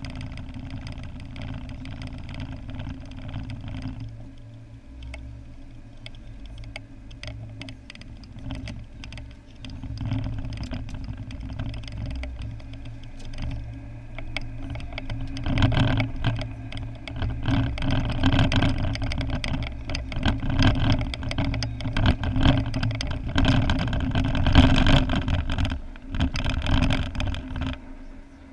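A car's engine and road noise heard from inside the cabin: a steady idle at first, then the car pulls away and drives, with the road noise and many small knocks and bumps growing louder and easing off again near the end as it slows.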